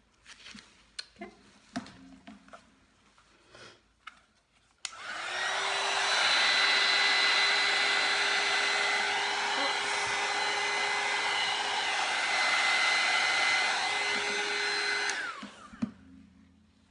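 Handheld heat gun switched on about five seconds in, blowing a steady rush of air with a faint motor whine, and switched off about two seconds before the end. Light handling clicks and taps come before it.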